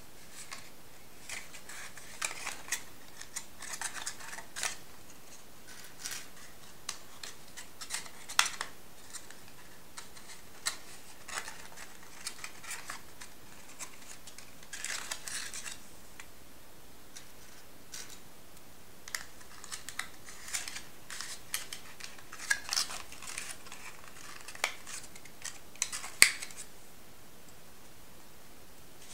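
Paper being folded and creased by hand: scattered crinkles, rustles and sharp crackles with short pauses between them, the loudest crackle near the end.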